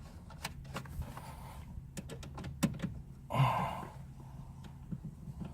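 Light clicks and knocks of plastic interior trim and small parts being handled and fitted back into place, with one brief louder rasp a little over three seconds in, over a steady low hum.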